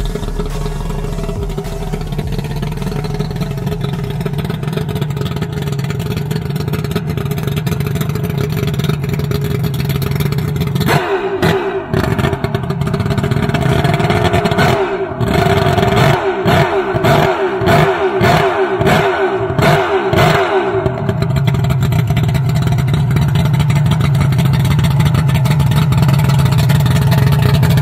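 Mercury 2.5-litre V6 two-stroke racing outboard idling with a steady drone. About a third of the way in it is blipped about a dozen times in quick succession, each rev falling straight back, then it settles to a steady idle again.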